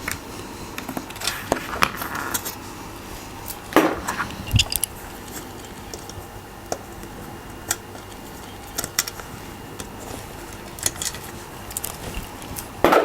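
Irregular sharp plastic clicks and knocks as switches are pushed and lifted out of a mechanical keyboard, with loose parts knocking together.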